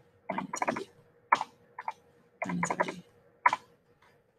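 Computer keyboard typing: short bursts of a few sharp key clicks with brief pauses between them, as short entries are keyed into one cell after another.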